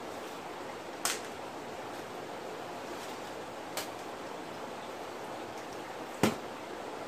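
Steady rush of water pouring from a pipe into a fish tank, with three short sharp knocks as plastic gear is handled, the loudest near the end.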